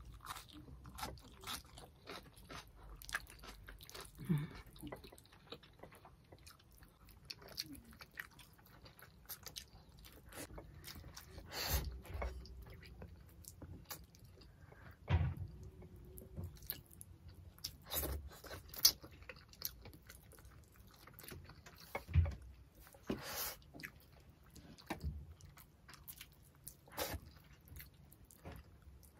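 Close-miked chewing and lip-smacking of two people eating fish and rice: irregular wet mouth clicks, with a few louder smacks.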